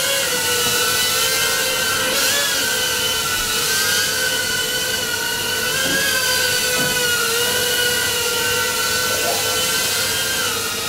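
Micro FPV quadcopter's motors and propellers whining steadily in flight, the pitch wavering slightly up and down.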